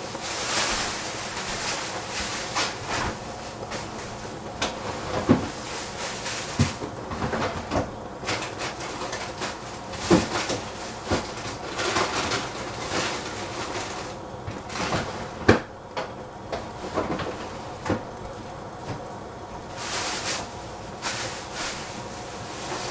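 Kitchen clean-up clatter: scattered knocks and bumps of things being handled and put away, a few of them sharper, over a steady faint hiss.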